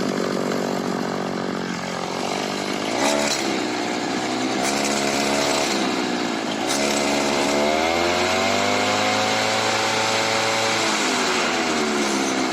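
Makita RBC411 brushcutter's two-stroke engine idling, then revved up three times, the last rev held longest before dropping back toward idle near the end. It runs smoothly, without the shaking or strange noise, now that its broken clutch spring has been dealt with.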